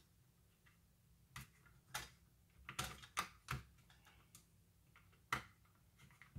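Irregular light clicks and knocks of hard plastic as a small plastic part is pressed and worked into its slot on a circular saw's housing.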